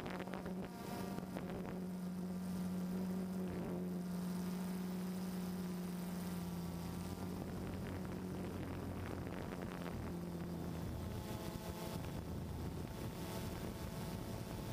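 DJI Phantom 2 quadcopter's four electric motors and propellers buzzing steadily in flight, picked up by its onboard camera, with wind on the microphone. The hum's pitch shifts lower about eleven seconds in.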